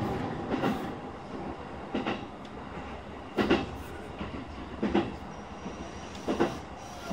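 E233 series electric train running along the track, heard inside the cab: a steady rumble with a clack from the wheels over rail joints about every one and a half seconds.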